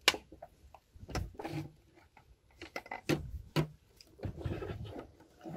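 Handling noises in a car's engine bay: a loud click right at the start, then scattered sharp clicks and knocks, with a short rustle about four seconds in.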